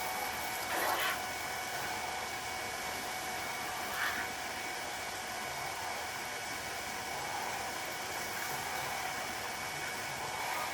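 Steady rushing hiss of water running from a hose into a pan, with two brief louder sounds, about a second in and about four seconds in.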